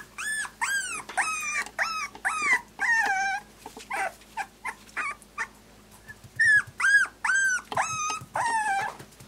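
Pembroke Welsh Corgi puppy, just under four weeks old, crying for its mother in a string of high whines that each rise and fall in pitch, softer for a moment near the middle and then loud again.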